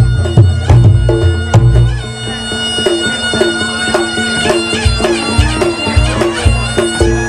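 Reog Ponorogo gamelan music: a slompret's reedy melody over a steady drone, with regular drum and gong strokes. The drums drop away about two seconds in and come back near five seconds, leaving the slompret to carry the tune alone.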